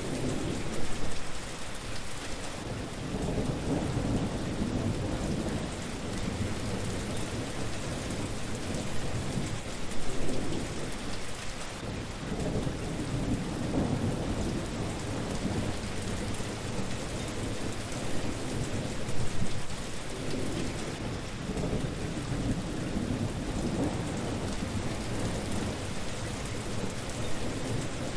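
Steady rain falling on a surface, a continuous hiss, with low rumbling swells that rise and fall several times.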